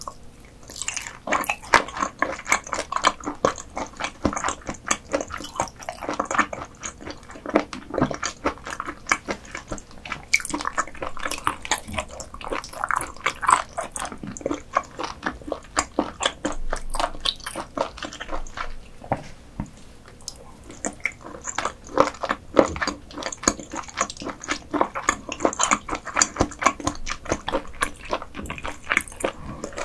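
Close-miked eating sounds of croaker dishes: wet chewing and biting with many crisp, irregular clicks and smacks, easing off briefly about two-thirds of the way through.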